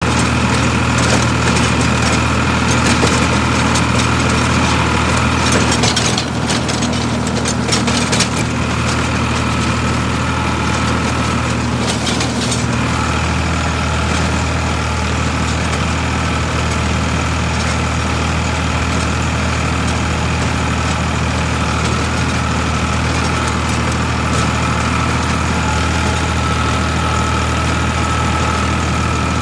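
Farmtrac 60 tractor's diesel engine running steadily under way, with brief noisy patches about six to eight seconds in and again around twelve seconds.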